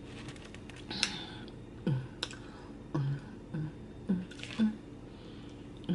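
Mouth sounds close to the microphone while eating: short wet clicks and smacks, each with a brief low hum, about seven times in irregular succession.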